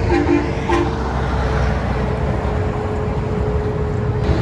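Road traffic rumbling past, a low steady roar of passing truck and car traffic with a faint steady hum running through it.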